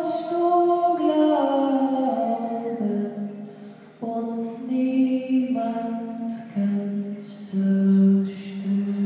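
A woman sings a slow German song, accompanied by soprano saxophone, bass clarinet and trombone. The melody steps downward over the first few seconds and the music dips briefly a little before four seconds in. Near the end a low chord is held.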